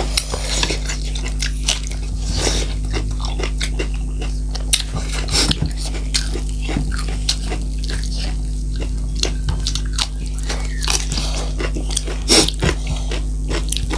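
Close-up eating sounds: a person chewing and biting food, with repeated irregular crunchy clicks and smacks. A steady low hum runs underneath.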